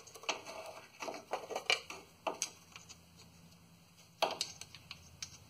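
Scattered, irregular light metal clicks and clinks as a transmission pan bolt is worked with hand tools, with a sharper click about four seconds in. The bolt will not thread in because its hole has been cross-threaded.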